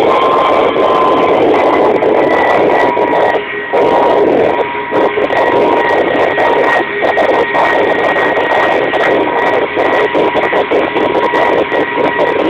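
Kamov Ka-26 helicopter's twin radial piston engines and coaxial rotors running steadily in flight, heard loud from inside the cabin: a dense drone with a steady high whine over it.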